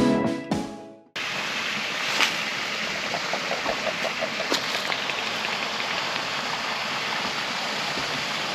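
Instrumental intro music ends about a second in. After a brief gap comes a steady rushing hiss of lakeside outdoor ambience, with a few faint clicks.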